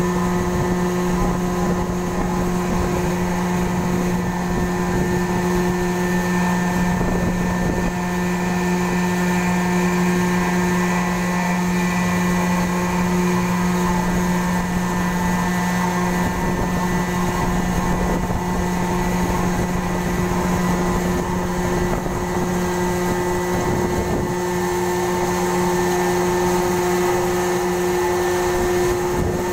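A ferry's engines and machinery running as a steady drone, with a deep hum and a higher tone held constant under a low rumble.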